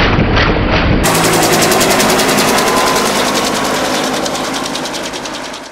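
Fuji-Bell 204B-2 helicopter's two-blade main rotor beating as it climbs away. For the first second it is a slow, deep thumping, about three beats a second, slowed down with the slow-motion footage. About a second in it switches abruptly to the real-time blade slap, a rapid even beat of about ten a second, which fades near the end.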